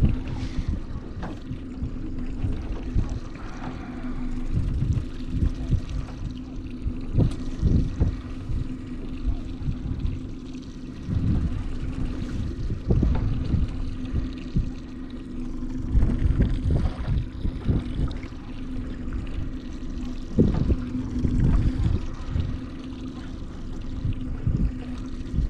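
Mercury outboard motor idling with a steady hum, with gusts of wind buffeting the microphone every few seconds.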